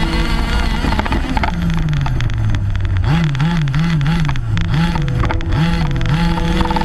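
Two-stroke petrol engine of a Losi 5ive-T large-scale RC truck revving as it races, heard from on board. Its pitch drops slowly, then rises and falls several times in quick succession as the throttle is worked, then swings more slowly.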